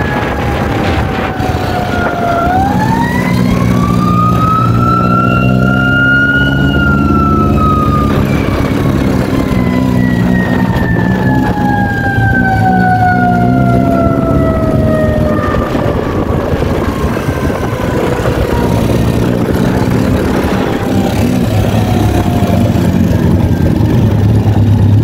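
Fire truck siren wailing in long slow sweeps. It falls, rises for about four seconds, then winds slowly down over about ten seconds, with another fall near the end. Underneath, a motorcycle engine runs steadily while riding.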